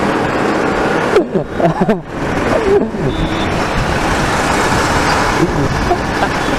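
Steady wind rush on the microphone over the running engine of an old geared scooter being ridden at speed, with road traffic around it.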